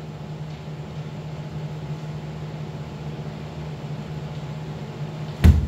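Steady low hum, then, near the end, one sharp, loud impact as a kendo attack lands: the crack of a bamboo shinai strike together with a foot stamping on the wooden floor.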